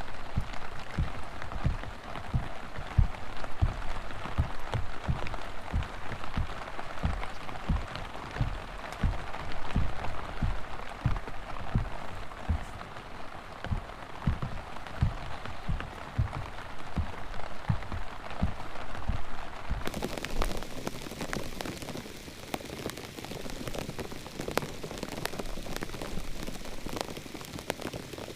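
Heavy rain falling, with large drops thudding close by two or three times a second. About two-thirds of the way through, the sound changes abruptly: the thuds stop and the rain becomes a brighter, steady hiss.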